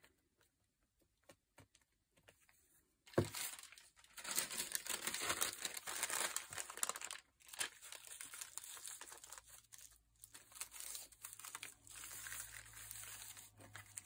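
Tissue paper crinkling and rustling as it is laid onto a glued journal page and smoothed down. A single knock comes about three seconds in, where the rustling begins.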